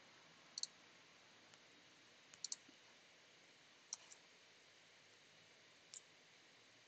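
Several short, sharp computer clicks, some in quick pairs, from the mouse and keys as applications are switched and a file is dragged, over near-silent room tone.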